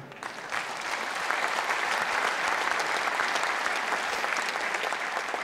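A theatre audience applauding. The clapping swells over the first second or two, holds steady, and fades toward the end.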